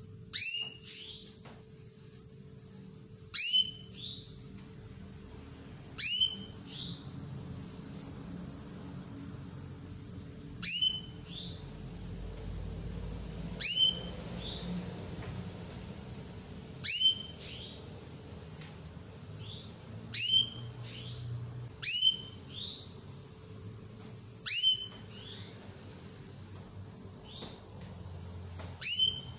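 Female domestic canary calling: short, sharp chirps that sweep downward in pitch, each with a second lower note, repeated about ten times at two- to four-second gaps. This is the female's call used to stir male canaries into song.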